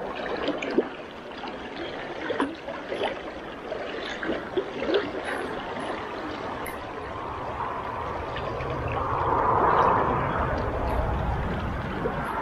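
Fast river swollen with spring runoff rushing and gurgling along the bank, with a few light clicks in the first five seconds. The rush swells louder about nine to ten seconds in.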